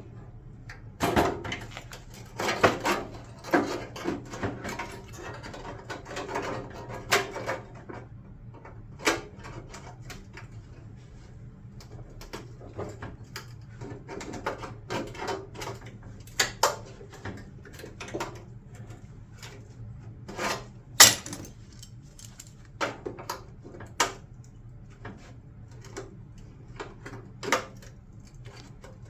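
Irregular knocks, clicks and clinks of hand tools and clamps being handled against a sheet-metal car panel, with a sharper knock about two thirds of the way through, over a low steady hum.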